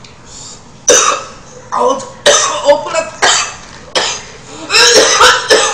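A woman coughing hard in a string of loud coughs and throat-clearing, choking on spicy beef soup.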